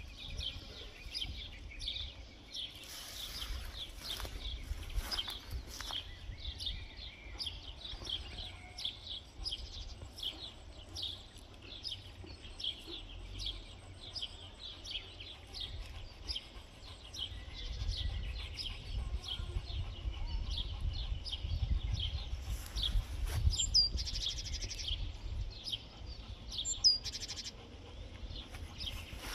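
Small birds chirping continuously, many quick short chirps overlapping, over a low outdoor rumble that grows heavier past the middle.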